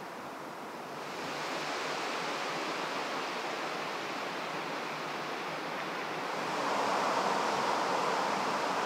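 Steady rushing roar of distant motorway traffic, with no single vehicle standing out. It gets louder about a second in and again at about six and a half seconds.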